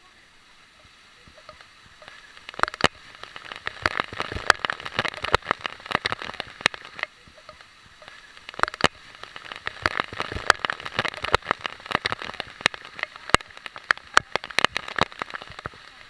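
Waterfall spray splashing right onto the camera: a dense crackle of drops hitting it over the rush of falling water. It builds about two seconds in, eases briefly about halfway, then comes heavy again until just before the end.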